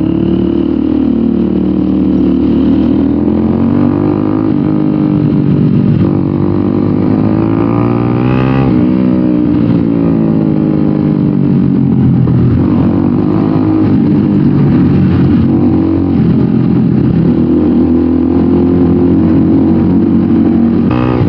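Bajaj NS200's single-cylinder engine running through an SC Project slip-on exhaust while riding, its note rising and falling with the throttle, most clearly about eight seconds in.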